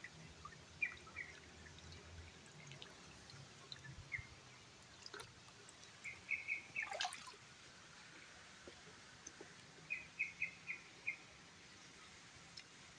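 Faint trickle of shallow stream water, with a bird calling in two quick runs of four or five high chirps, about six and ten seconds in, and a few small clicks and drips.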